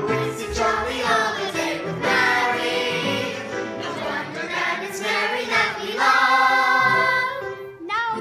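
A group of children singing together in chorus, ending on a long held note near the end.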